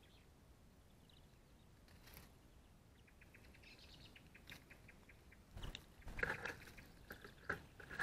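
Small songbirds at a ground feeder, European greenfinches and a European robin: faint, quick ticking calls start about three seconds in, then a few louder flutters and sharp knocks with short calls in the second half.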